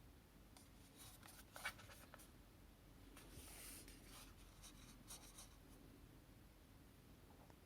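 Near silence with faint scratching and a few small clicks, in short bunches, of something being handled.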